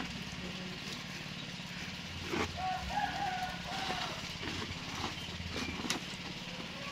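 A steady low hum runs throughout. A rooster crows about two and a half seconds in, and a few sharp knocks or clicks come near 2.5 and 6 seconds.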